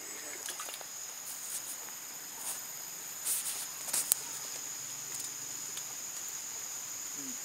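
Steady high-pitched insect chorus. A few short clicks sound about three to four seconds in.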